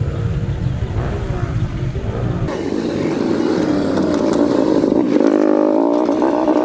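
Small motor scooter engine running while riding, with a heavy low rumble for the first couple of seconds. After that the engine note rises and falls with the throttle.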